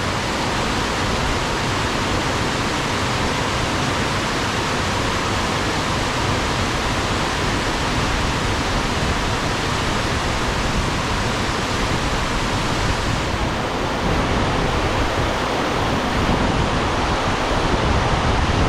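Loud, steady rush of storm-swollen flowing water.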